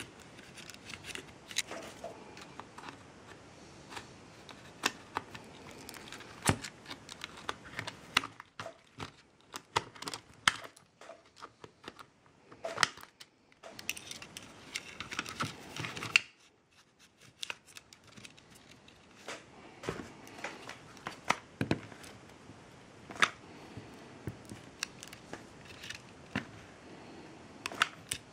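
Irregular clicks, taps and rustling of small tools and plastic parts being handled while an LED inspection lamp is worked on, with a denser scraping, tearing stretch a little past the middle.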